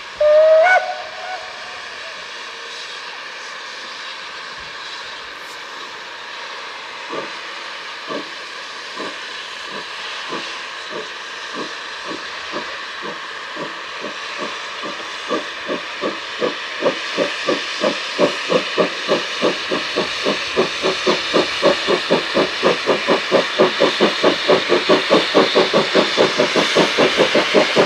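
Rhaetian Railway G 4/5 steam locomotive No. 108 'Engiadina' gives one short whistle, then its exhaust beats start slowly over a steady hiss. The beats quicken to about three a second and grow louder as the engine works closer.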